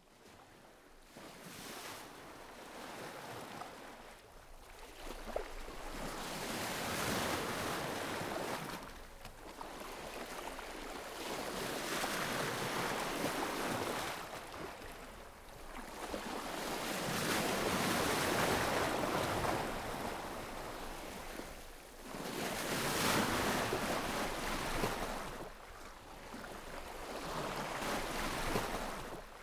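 Sea waves washing onto a shore, the surf swelling and falling back roughly every five seconds.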